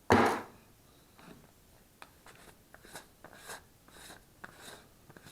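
Handling of a drill bit set and its packaging: a sharp clack right at the start, then a string of light clicks and rustles.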